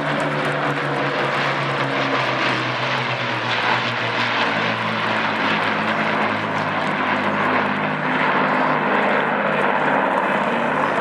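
Two four-engined Avro Lancaster bombers flying past, their Merlin V12 piston engines droning together. The pitch sinks slowly as they go by.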